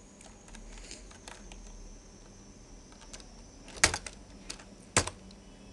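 Light, scattered clicks of a computer keyboard and mouse over a faint steady hum, with two louder sharp clicks about four and five seconds in.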